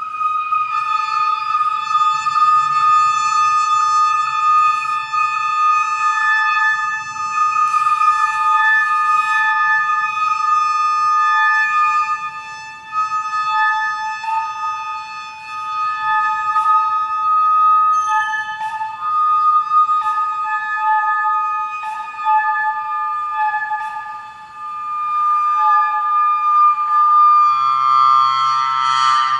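Experimental drone music played on hechtyphon and microtone duplex: several high, flute-like tones held steadily close together in pitch, shifting now and then, with scattered sharp clicks. There is a brief hiss about eight seconds in, and the tones swell just before the end.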